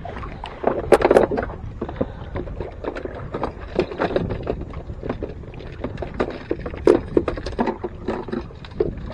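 Fishing lures and tackle clattering as they are rummaged through in a plastic tackle box: many short clicks and knocks, a louder cluster about a second in, over the steady low rumble of the boat.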